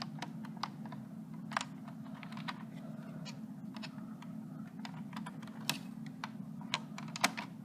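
Outdoor unit of a 2001 York 2.5-ton central air conditioner running with a steady low hum. Irregular sharp clicks and taps come over it, the loudest about a second and a half in and near the end.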